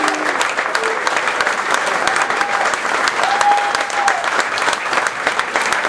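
Audience applauding steadily, dense rapid clapping with a couple of brief voices calling out in the middle.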